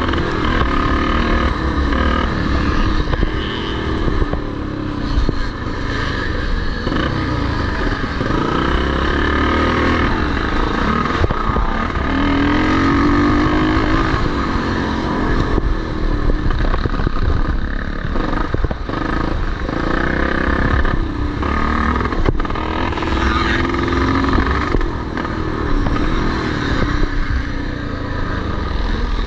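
Vintage motocross motorcycles racing, their engines revving up and dropping back again and again, with more than one bike heard at once.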